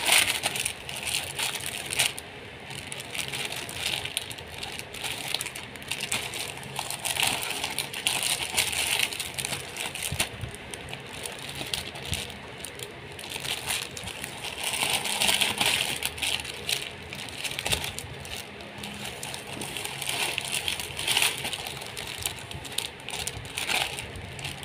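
Plastic packaging crinkling and rustling in irregular waves as hands open a plastic courier mailer and handle shirts sealed in clear plastic bags.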